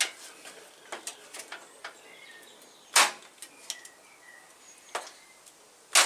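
Parkside PHET 15B1 electric nailer firing nails into plywood: three sharp snaps about three seconds apart, with a smaller knock a second before the last.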